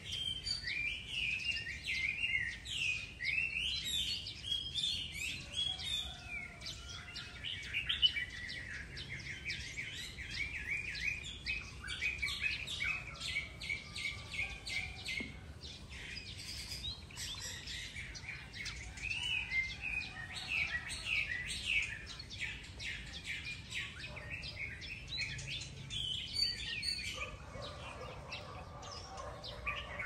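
Many small birds chirping and twittering at once in a morning chorus, a dense stream of short, high chirps. A lower, steadier sound joins near the end.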